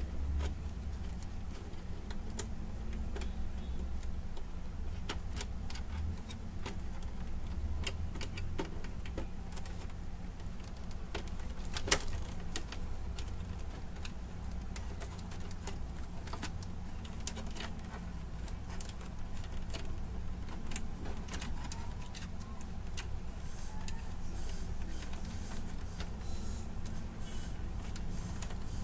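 Scattered light clicks and ticks of plastic parts and cables being handled inside an opened Brother DCP-T710W inkjet printer, with one sharper click about twelve seconds in, over a steady low hum.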